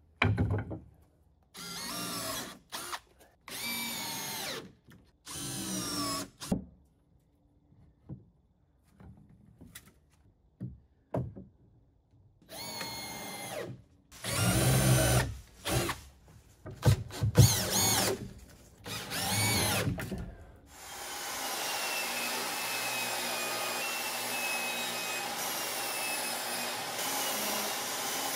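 Cordless drill driving screws into wooden rafters in a series of short runs of a second or so, each spinning up as it starts. From about 21 seconds in, a jobsite table saw runs steadily while a board is ripped through it.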